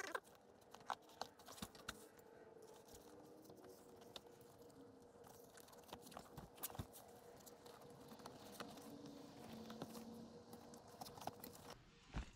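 Quiet handling of a vinyl seat cover over foam: rustling, with scattered small clicks and light knocks, over a faint steady hum that stops shortly before the end.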